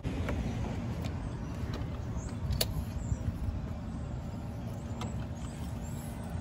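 A car's front door latch clicks as the door is pulled open, with a few lighter knocks, over a steady low rumble.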